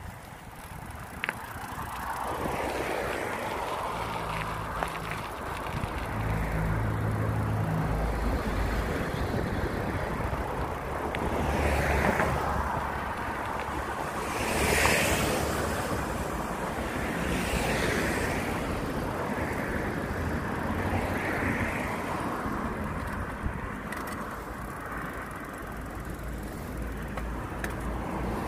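Wind rumble and road noise from a bicycle being ridden along a city street, with traffic passing; the noise swells several times, most strongly about halfway through.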